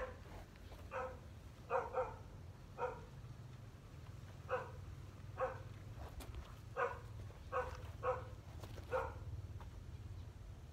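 A dog barking: about eleven short barks at uneven intervals, the last about nine seconds in.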